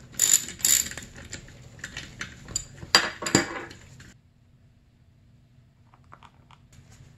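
Metal clinks and clatter of a ratchet, socket and bolts being handled at a snowmobile engine's crankcase: a run of sharp clicks, the loudest two about three seconds in, then it goes almost quiet with a few faint ticks near the end.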